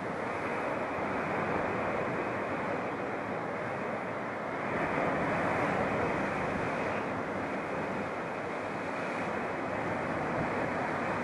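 Sea surf washing and breaking on a rocky shore below, a steady rush that swells a little about five seconds in.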